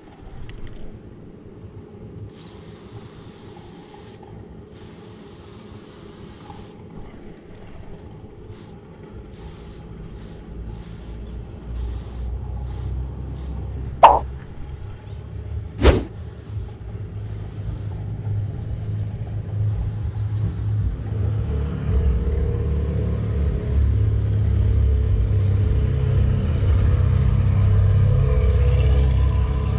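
Aerosol spray paint hissing in short bursts, then a low rumble that builds up and stays loud through the second half. Two sharp knocks about two seconds apart come midway and are the loudest sounds.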